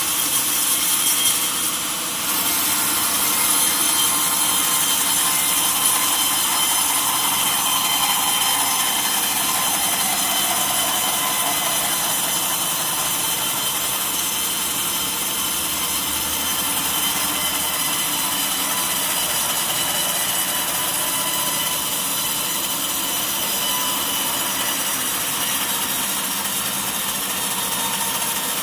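Sawmill saw cutting through a mahogany log: steady, continuous cutting noise with a high whine, dipping briefly about two seconds in.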